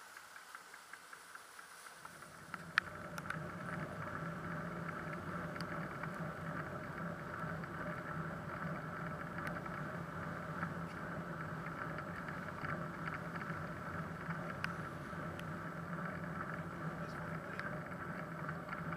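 Steady rolling and traffic noise of a bicycle ridden along a path beside a motorway, picked up by a camera on the bike, with scattered small clicks and rattles. It sets in about two to three seconds in, after a quieter start.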